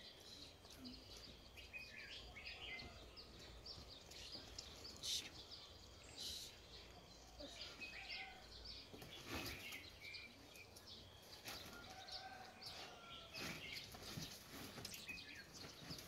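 Faint outdoor ambience: small birds chirping here and there, with scattered light knocks and rustles as sheep feed and move about; one louder knock about five seconds in.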